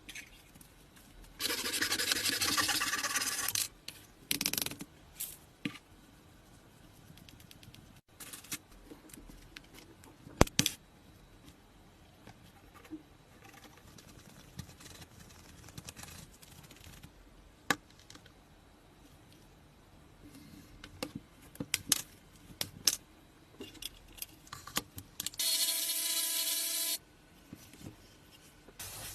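Workshop handwork sounds: bursts of rubbing and scraping, scattered clicks and taps, and one sharp knock about ten seconds in. Near the end there is a short, steady whirring burst with a pitched hum.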